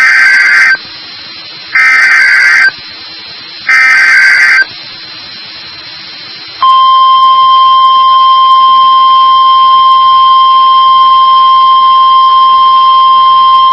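NOAA Weather Radio Emergency Alert System header: three short bursts of digital alert-code tones, about two seconds apart. About two seconds after the last burst comes the long, steady warning alarm tone. Together they announce an incoming warning, here a severe thunderstorm warning.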